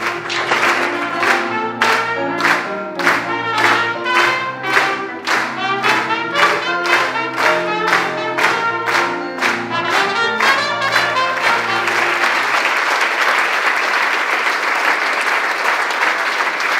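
A live band with an upright bass plays a lively tune with a sharp, steady beat of about two a second, which ends about twelve seconds in. Applause follows.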